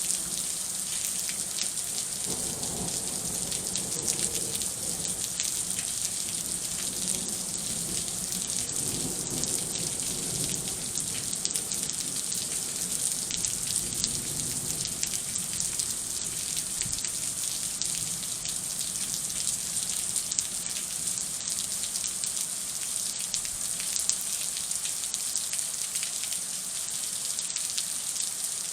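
Heavy thunderstorm rain falling steadily, a dense patter of drops. A faint low rumble sits under the rain in the first half.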